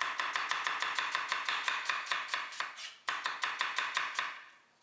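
Stamped Santoku knife rapidly slicing an onion on a maple butcher block: quick, even taps of the blade on the wood, about six or seven a second. They stop briefly about three seconds in, then a second run fades out near the end.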